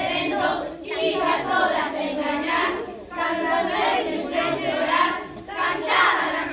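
A child singing, in short phrases with brief pauses between them.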